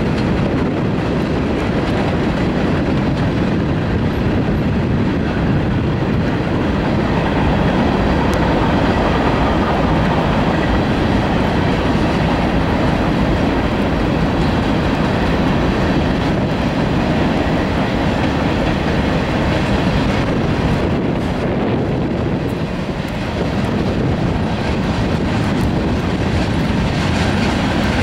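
Tank cars and covered hoppers of a CSX manifest freight train rolling past: a steady, loud rumble with the clatter of steel wheels on the rails.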